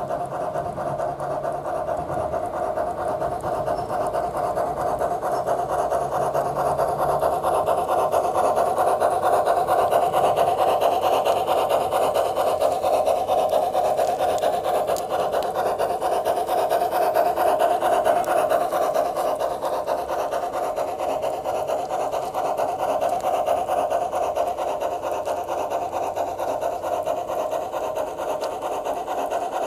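Soundtraxx Tsunami sound decoder in a Bachmann G-scale Climax geared steam locomotive model, playing the steam exhaust chuff through the model's small speaker as it runs, a rapid, even beat. It grows louder around the middle as the locomotive passes close.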